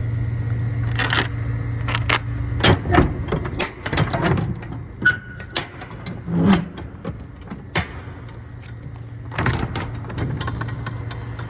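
A truck's engine idling with a steady low hum, which drops out after about two and a half seconds. Then come a run of sharp clicks, knocks and rattles for several seconds, like things being handled in the cab. The idle hum returns near the end.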